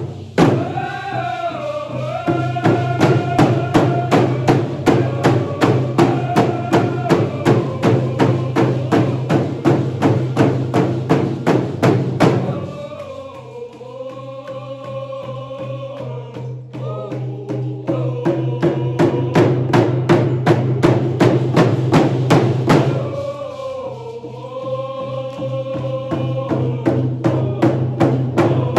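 Many hand drums beaten together in a steady, even beat under a group of voices singing a chant in unison. Twice the drumming drops to softer strokes while the singing carries on, then comes back up to full strength.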